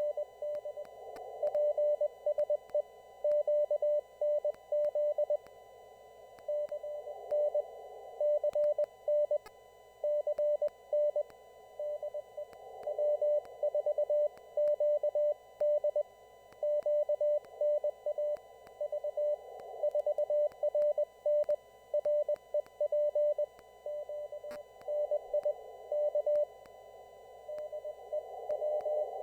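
Morse code (CW) received on an amateur radio receiver: a single steady mid-pitched tone keyed on and off into dots and dashes at a steady sending pace, over band noise hiss heard through a narrow CW filter.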